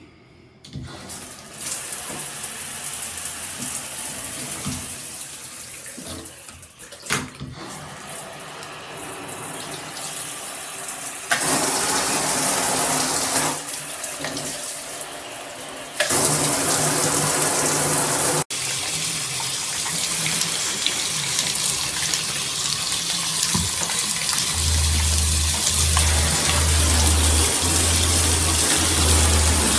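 Water spraying from a handheld shower head, its sound changing several times as the spray shifts, with a brief break about eighteen seconds in. A low hum switches on and off in the last few seconds.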